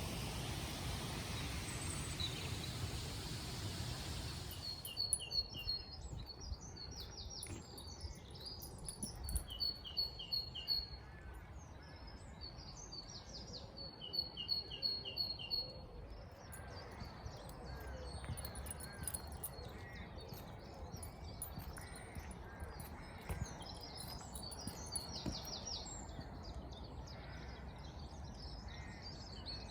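A steady rushing noise for the first few seconds, then outdoor birdsong from small songbirds: a bird repeating a quick high two-note phrase several times in bursts, with other birds chirping and twittering around it.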